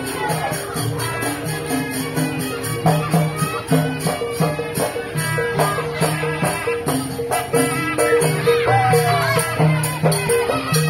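Traditional Madurese gending music: percussion strikes keep a steady beat over a repeating low bass figure, with a melody line that slides up and down in pitch.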